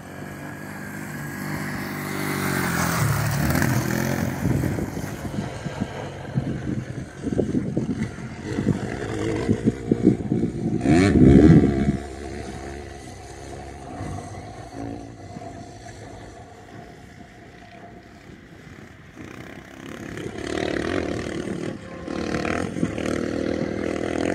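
Dirt bike engines revving up and easing off as the bikes ride past, the pitch rising and falling with each throttle change and gear shift. The loudest pass comes about halfway through.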